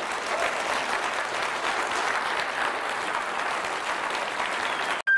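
Audience clapping steadily in a lecture hall. It cuts off abruptly right at the end and a bright ringing chime begins.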